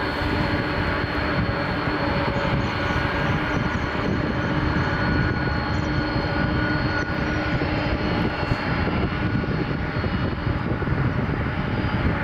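Aircraft engines running loud and steady: a constant rumble with several steady whining tones over it.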